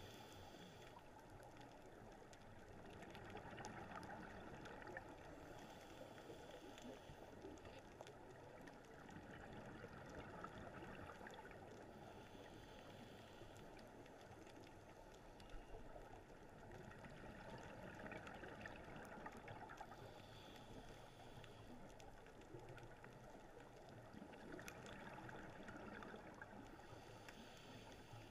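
Faint, muffled underwater noise through a GoPro dive housing, swelling every few seconds with a scuba diver's regulator breathing and exhaled bubbles.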